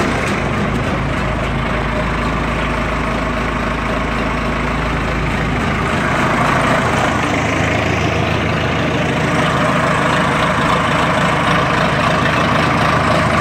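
Case W11B wheel loader's diesel engine idling steadily, still cold, about a minute after a cold start.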